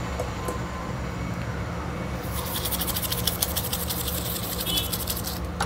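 A steady low hum, joined about two seconds in by a fast, dry scratching that runs on until just before speech resumes.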